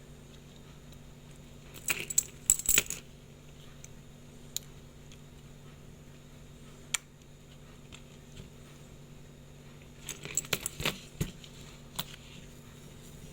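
Small metal clicks and clinks of watch case parts and watchmaker's tools being handled on the bench: two brief clusters, about two seconds in and about ten seconds in, with a few single ticks between.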